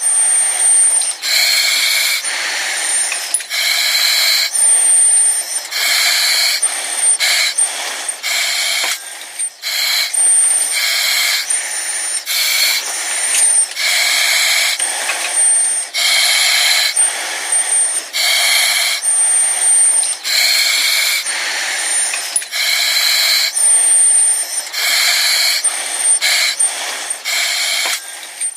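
A person breathing through an oxygen mask: a regular rhythm of airy, hissing breaths, each about a second long, with a thin high whistle in the pauses between them.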